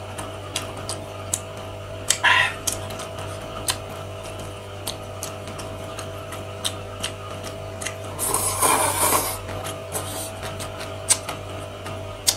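Close-miked mukbang eating sounds: chewing with many small sharp clicks from mouth and chopsticks, a brief slurp about two seconds in and a longer, louder slurp of noodles about eight seconds in, over a steady low hum.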